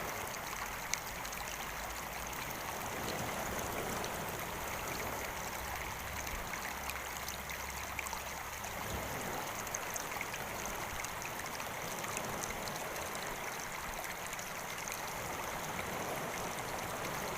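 A small stream running: a steady rush of flowing water with faint scattered splashes and ticks.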